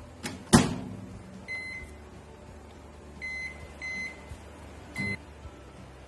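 Convection microwave oven door shut with a sharp knock about half a second in, then four short high keypad beeps a second or so apart as the cooking program is set. A faint steady low hum runs underneath.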